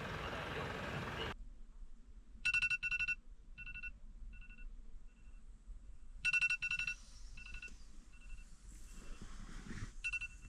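Wake-up alarm ringtone beeping in the quiet, dark van: two loud beeps followed by several fainter echoing ones, the pattern coming back about every four seconds. A steady outdoor hiss cuts off just over a second in, and bedding rustles shortly before the end.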